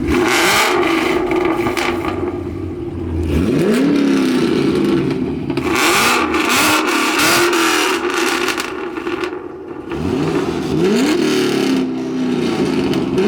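Car engines in a rev battle, a Ford Mustang among them: loud, with several revs that climb steeply in pitch and fall back, and sharp exhaust pops between them.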